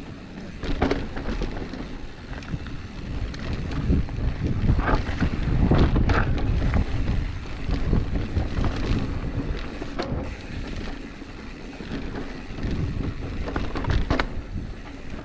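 Full-suspension mountain bike being ridden down a rough downhill trail: wind buffeting the microphone over the rumble of tyres on dirt and the bike rattling, with sharp knocks from bumps now and then.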